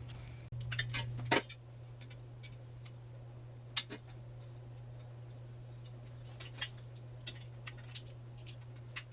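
Irregular sharp metallic clicks and taps of hand tools working at the bench's rusted-in hardware, the loudest about a second in, over a steady low hum.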